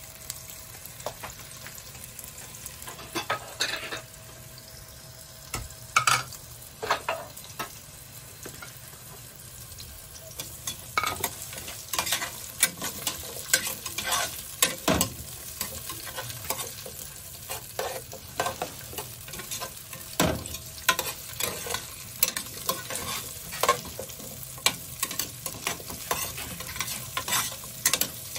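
Sliced carrots and bell peppers sizzling in hot oil in a metal pot, being lightly fried, while a spatula stirs them and scrapes and knocks against the pot. The stirring knocks are few at first and come thick and fast from about a third of the way in.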